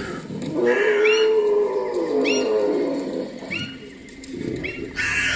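Animal calls: one long low call that rises and falls in pitch over about two and a half seconds, among repeated short, higher calls that rise in pitch, with a louder one near the end.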